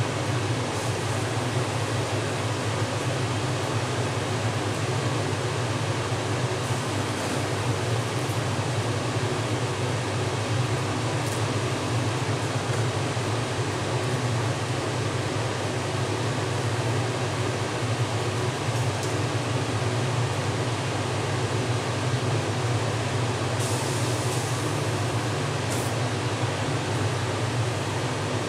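Steady, even hum with hiss, like a running fan or air conditioner, unchanged throughout; a few faint clicks.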